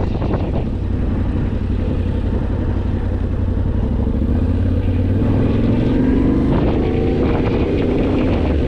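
Yamaha Ténéré 700's parallel-twin engine running steadily as the motorcycle is ridden along a road, its note rising about halfway through.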